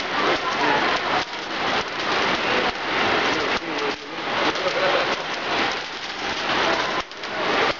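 A large handful of pennies rolling and spiralling together around the shiny metal bowl of a hyperbolic coin funnel, a dense, continuous metallic rattle of many small coin contacts.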